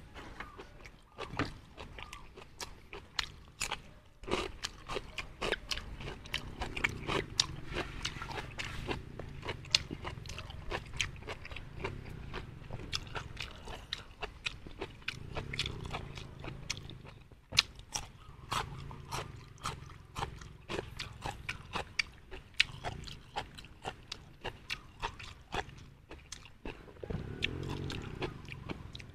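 A person chewing food close to the microphone, a run of wet smacking and clicking mouth sounds with crunches of raw cucumber.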